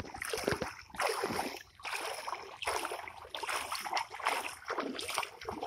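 Legs wading through shallow floodwater, the water swishing and splashing with each stride in steady, repeated surges.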